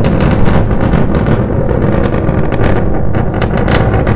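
Starship SN9's three Raptor engines firing in ascent: a steady low rumble laced with dense crackling.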